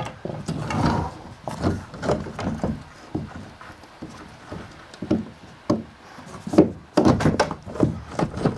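Irregular knocking and clanking of hand tools and metal parts while loosening a rusty wheel on an old ATV, with a quick run of knocks near the end.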